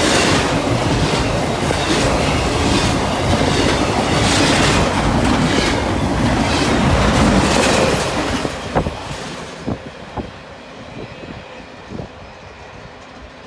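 Norfolk Southern freight train cars passing, their wheels clacking over rail joints. The rumble drops off sharply about eight seconds in as the train goes by, leaving a few fainter clicks that fade away.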